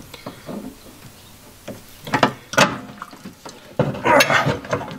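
Pliers and stiff electrical wire clicking and knocking against a metal electrical box as the wire is worked into place, a few separate clicks at first, then a louder stretch of scraping and rubbing about four seconds in.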